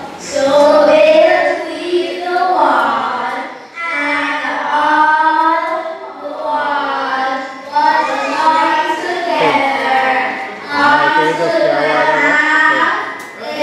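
Girls singing a song together, one girl's voice carried by a microphone, in phrases with long held notes.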